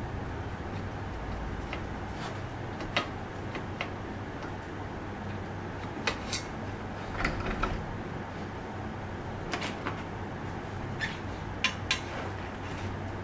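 Scattered small metallic clicks and taps as a screwdriver and a bicycle rear derailleur are handled and fitted at the frame's rear dropout, over a steady low hum.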